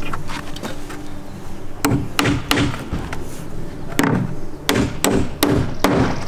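Claw hammer driving headed face nails into charred sugi (Cryptomeria) wood siding, tightening boards that have moved and opened at the miters. Three sharp strikes about two seconds in, then a quicker run of about six strikes from four seconds in, roughly three a second.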